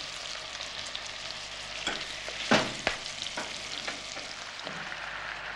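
Chicken pieces sizzling in butter and oil in a pot, being browned over fairly high heat. A few sharp clicks of a fork against the pot and pieces cut through the sizzling, the loudest about two and a half seconds in.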